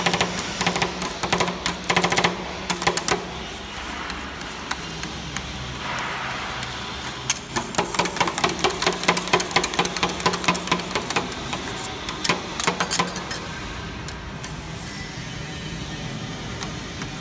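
Metal spatulas chopping and scraping ice cream on the frozen steel pan of a fried ice cream roll machine: fast bursts of clacking in the first few seconds and again around the middle, with quieter scraping between and near the end. A steady low hum runs underneath.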